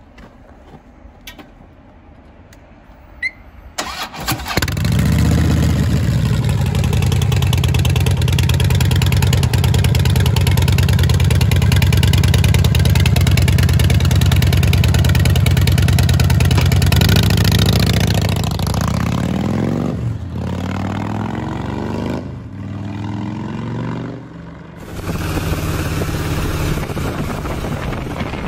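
Harley-Davidson Breakout's V-twin engine starting about four seconds in, then running loud and steady through its exhaust. Near the middle it is revved up and down a few times, and near the end it is heard riding at speed.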